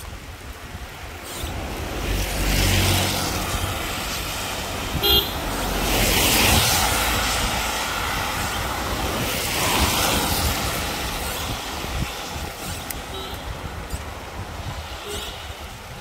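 Motor vehicles passing on a wet road. An engine rumbles about two seconds in, and a horn gives one short toot about five seconds in. Tyres hiss on wet asphalt as vehicles go by around six and ten seconds.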